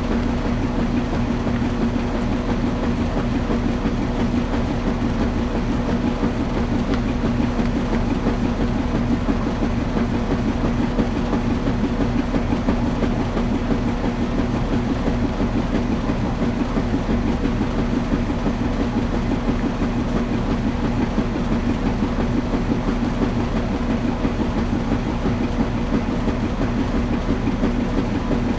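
Washing machine running steadily: a continuous mechanical rumble with a low, even hum.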